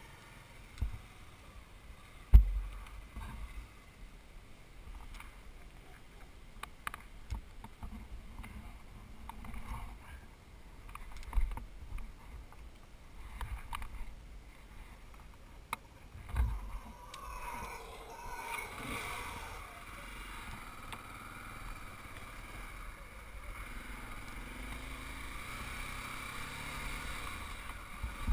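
Scattered dull thumps, the loudest about two seconds in, then a motorcycle engine running steadily, starting about two-thirds of the way through.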